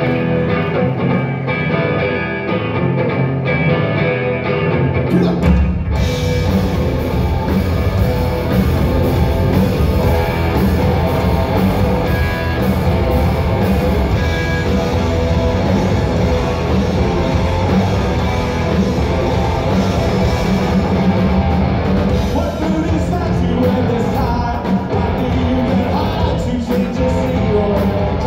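Live amplified rock band playing a song: a lighter guitar opening, then the full band comes in with heavy bass and drums about five seconds in.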